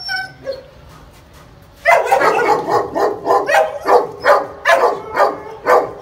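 A dog barking rapidly and repeatedly, about three barks a second, starting about two seconds in.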